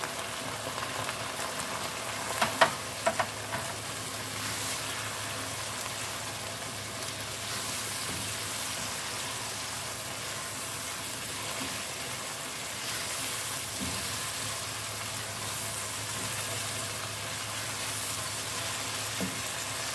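Onion and tomato sauce sizzling steadily in a granite-coated pan while a plastic spatula stirs spices through it, with a few sharp taps between two and three and a half seconds in.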